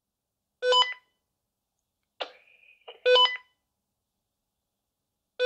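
Walkie-talkie giving short electronic beep chirps, each a quick run of tones, three of them about two and a half seconds apart, with a faint high tone just before the second.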